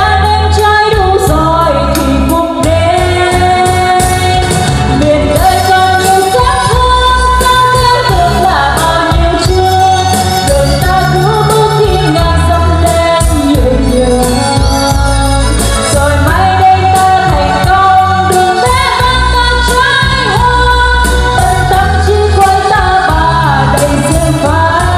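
A woman singing a Vietnamese pop song into a microphone over a karaoke backing track with a steady heavy bass beat, played through a trolley karaoke speaker cabinet with two 40 cm woofers.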